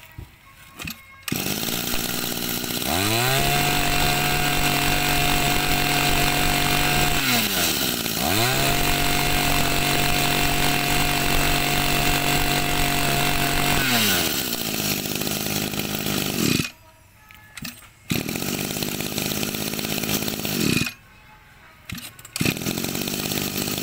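Small two-stroke engine of a Makita 24cc brush cutter starting about a second in, then run at high revs with a steady high note, briefly dipping and revving up again, before dropping back to idle. The sound cuts out briefly twice near the end.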